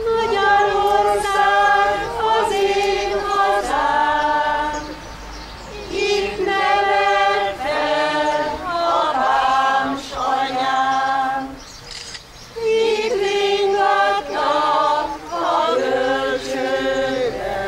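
A mixed folk choir of men and women singing Hungarian folk songs unaccompanied, in sustained phrases with short breaks between them.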